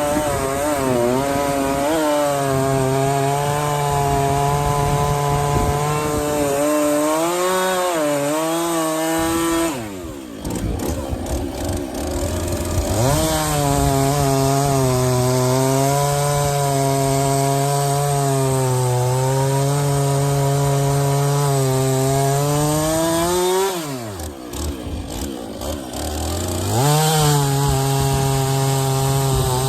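Two-stroke chainsaw bucking firewood logs at full throttle, its pitch wavering under load. The revs fall away twice, about ten seconds in and again near the end, as the throttle is let off between cuts, then climb back up for the next cut.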